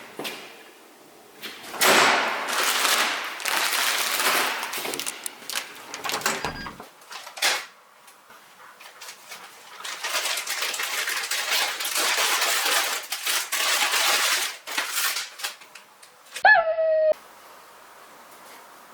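Rustling and handling noise in two long stretches, then a short, slightly falling whine from a Shiba Inu puppy near the end.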